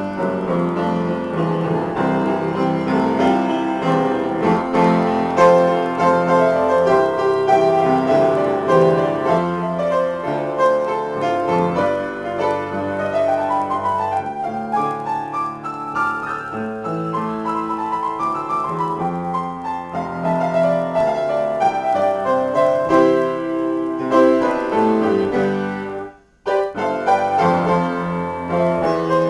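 Solo piano played as a free improvisation, chords and a wandering melody moving over the keyboard. The playing breaks off for a moment near the end, then carries on.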